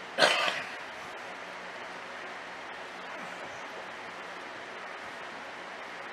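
Steady hiss of running water in an aquarium. Just after the start a brief, loud noise lasting about half a second cuts in over it.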